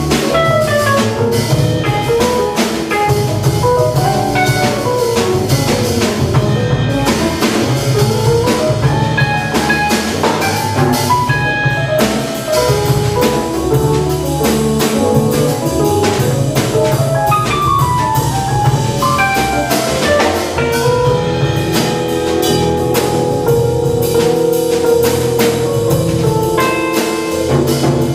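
A live jazz sextet playing at a moderate swing: a saxophone plays a running melodic line over walking acoustic bass, keyboard comping and drum kit with cymbals.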